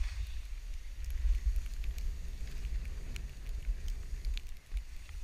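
Wind buffeting the microphone in a gusty rumble, with faint scattered clicks.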